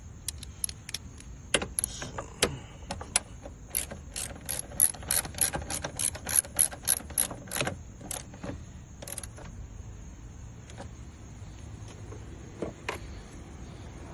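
Hand ratchet with a 10 mm socket clicking as a bolt is worked: scattered clicks, then a quick even run of strokes a few seconds in, then a few more near the end.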